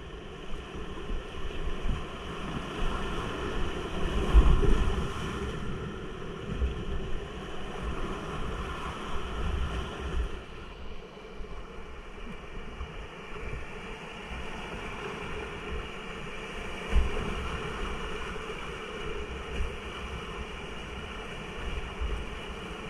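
Rushing whitewater of river rapids heard from a kayak through a GoPro, with wind and water buffeting the microphone in low rumbles. The rumble is loudest about four seconds in and again briefly about seventeen seconds in.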